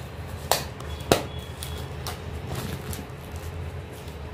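Cellophane shrink wrap on a cardboard phone box being cut with a small knife and pulled off: two sharp clicks about half a second apart near the start, then faint plastic handling noise.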